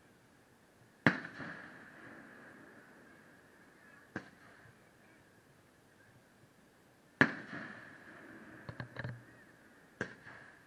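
Aerial firework shells bursting. There are loud bangs about a second in and about seven seconds in, a softer one around four seconds, a quick run of small crackling pops near nine seconds, and another bang near the end, each trailing off in an echoing rumble.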